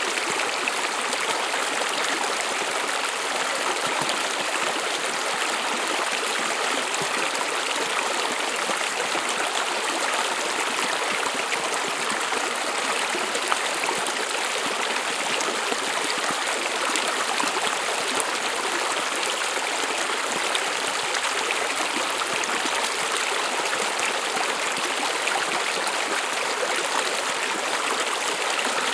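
A small stream flowing over stones: a steady babbling rush of water with no change in level.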